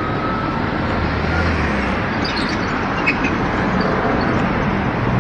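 Twin-engine jet airliner passing low overhead: a steady, broad roar of its engines that grows slightly louder.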